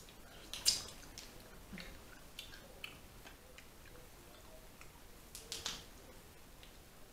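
Eating sounds from people chewing seafood: scattered wet mouth clicks and smacks, with two louder sharp clicks, one under a second in and one about two thirds of the way through.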